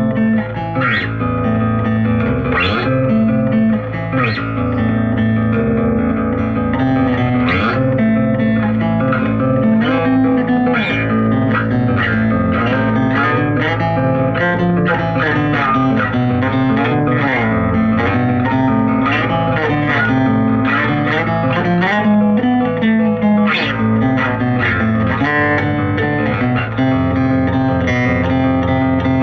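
Electric bass guitar played fingerstyle as a ballad: plucked notes and chords ringing over one another, with notes sliding in pitch in places.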